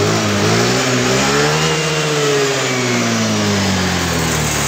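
Honda Air Blade scooter's single-cylinder fuel-injected engine revved with the throttle: it climbs in pitch for about a second and a half, then falls back slowly toward idle. It picks up cleanly without bogging or stalling, now that the faulty oxygen sensor, which read over 2 V and leaned the mixture, has been replaced.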